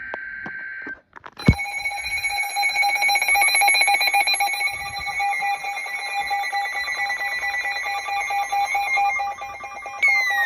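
Weather radio receiver going off for a new alert: a short burst of warbling EAS data tones, then, about a second and a half in, a loud electronic alarm that beeps in rapid steady pulses. Near the end a second tone joins and slides downward in pitch.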